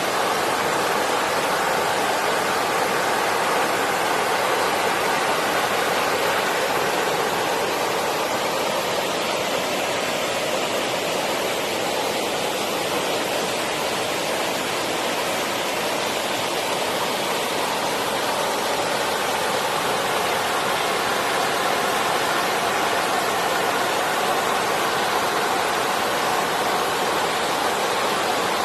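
Water rushing steadily, a constant even noise.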